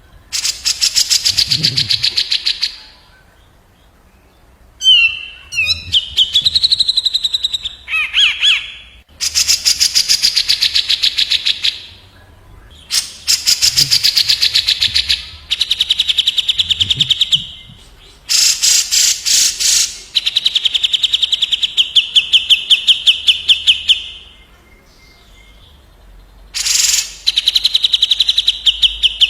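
Cucak jenggot (grey-cheeked bulbul) song: bursts of very fast rattling trills, each lasting one to three seconds, repeated with short pauses between them.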